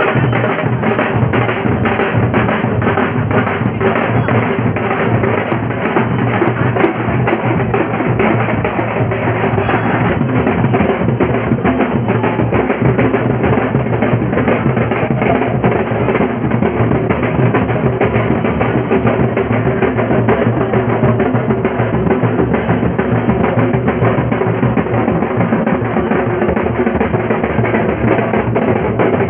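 Loud, fast drumming from a street procession, many strokes a second without a break.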